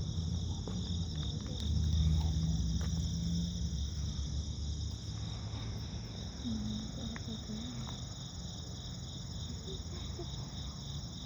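A cat purring close to the microphone: a low rumble, strongest in the first few seconds and fading after. Behind it runs a steady chorus of crickets.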